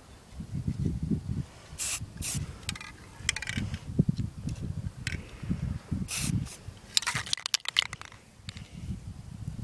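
Aerosol can of black spray paint hissing in several short bursts, with a quick run of them near the end, over an irregular low rumble.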